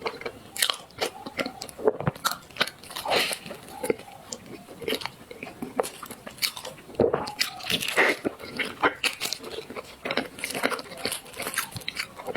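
Close-miked mukbang eating sounds: a person biting into and chewing desserts, with frequent crisp crunches and mouth smacks.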